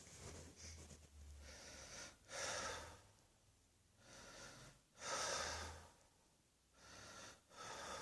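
A person breathing audibly: a series of noisy breaths in and out, the two loudest about two and a half and five seconds in.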